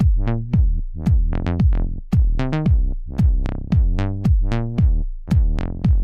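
Background electronic music with a steady drum-machine beat, about two beats a second.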